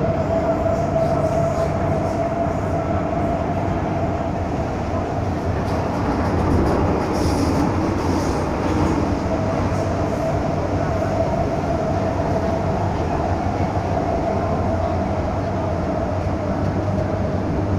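MTR M-Train electric multiple unit running, heard inside the passenger car: a steady low rumble of wheels and running gear with a steady whine on top. The whine drops away for a few seconds near the middle, then comes back.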